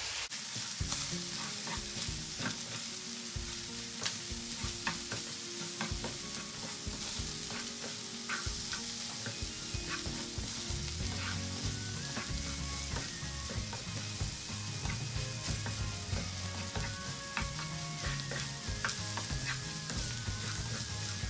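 Corned beef, fried potato cubes and onions sizzling in a frying pan while a wooden spatula stirs and scrapes through them, with frequent clicks of the spatula against the pan.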